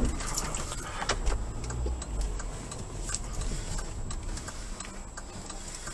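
Car turn signal ticking at a regular pace inside the cabin, over a low rumble of the car on the road.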